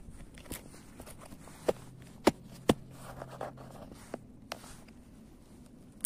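A dried-out foil-faced bitumen sound-deadening sheet being bent and handled by hand, giving off sharp cracks and crackles. Three loud cracks come about half a second apart near two seconds in, with fainter ones around them. The bitumen and its glue have hardened and gone brittle with age.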